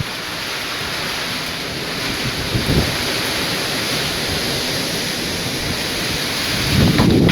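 Heavy rain and wind of a severe thunderstorm, a steady rushing hiss, with low rumbling gusts about a third of the way in and again near the end.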